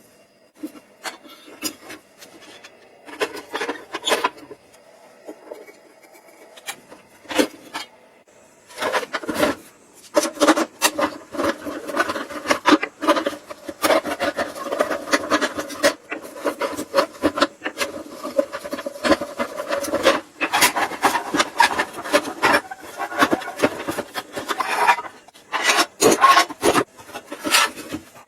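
Rough, repeated scraping and rubbing strokes, a few separate ones at first, then dense and nearly continuous from about nine seconds in.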